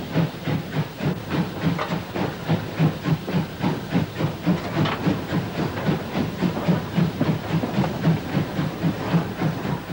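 Steam locomotive working hard, its exhaust chuffing in a quick, regular rhythm over a steady hiss of steam.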